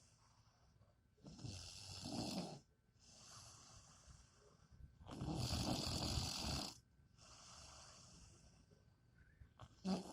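A person snoring: two loud snores about four seconds apart, each lasting over a second, with quieter breaths between them and a short sharp sound near the end.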